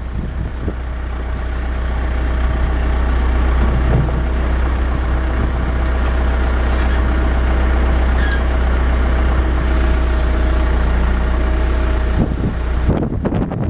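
Backhoe engine running steadily while its arm lifts a heavy timber beam. It grows louder over the first couple of seconds and drops away suddenly near the end.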